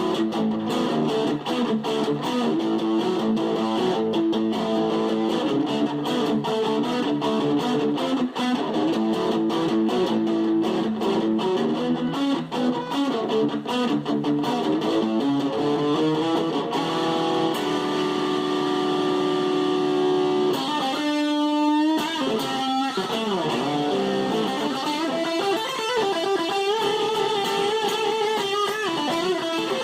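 Fender Stratocaster electric guitar played through a Fuzz Face fuzz pedal, running quick single-note lead lines, then held notes. About two-thirds of the way in there is a swooping, wavering passage.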